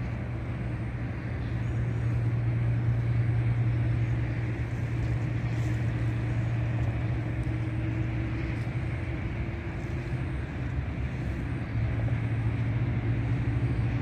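Steady low outdoor rumble with a droning hum underneath. It dips briefly about ten seconds in.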